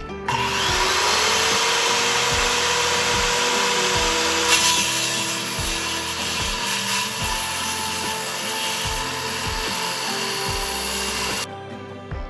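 Electric power saw spinning up with a rising whine and cutting through wood for about eleven seconds, then cutting off suddenly near the end. Background music with a steady beat runs underneath.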